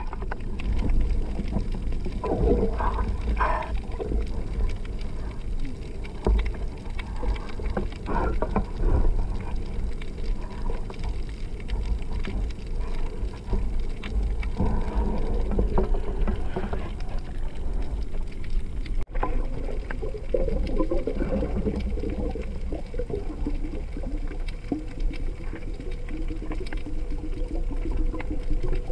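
Muffled underwater noise picked up through a camera housing: a steady low rumble with irregular swishing and knocks as the diver moves through the water, and a faint drone in the second half.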